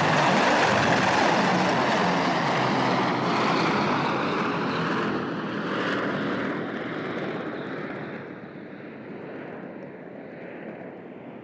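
Airplane engine noise as an aircraft passes and moves away, loud at first and fading steadily, the higher part of the sound dying away from about five seconds in.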